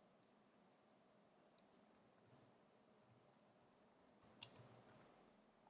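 Faint keystrokes on a computer keyboard: scattered single taps, then a quicker run of several about four seconds in.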